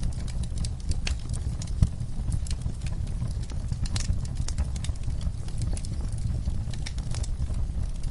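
Wood fire crackling in a fireplace: irregular pops and snaps over a steady low rumble, with one louder pop about two seconds in.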